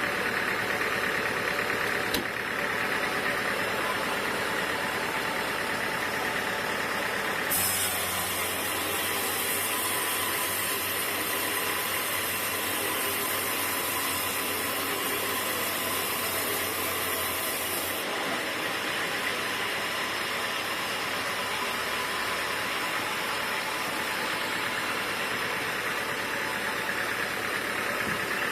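Sawmill machinery running steadily with a continuous engine-like drone. From about a quarter of the way in to about two-thirds through, a high hiss and a low hum join it, then stop.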